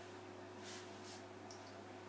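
Quiet room tone with a steady electrical hum, and two soft brief rustles about a second apart.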